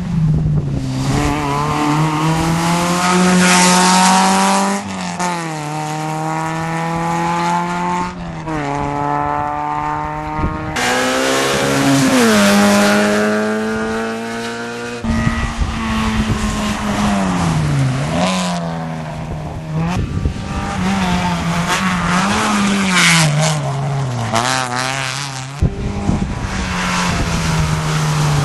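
Rally cars' engines revving hard as they pass one after another, the pitch climbing and then dropping sharply at gear changes and lifts off the throttle.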